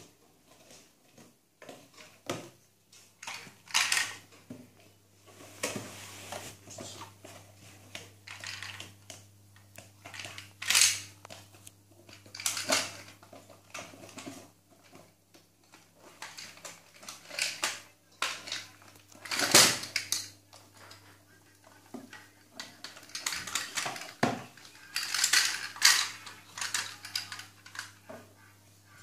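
Plastic Tobot transforming robot-car toy being handled, its hard plastic parts clicking, knocking and clattering in irregular bursts, over a faint steady hum.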